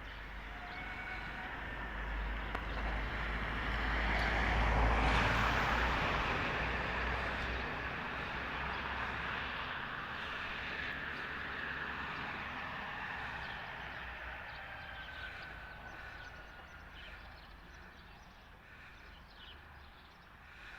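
A passing vehicle's noise, swelling to its loudest about five seconds in and then slowly fading away.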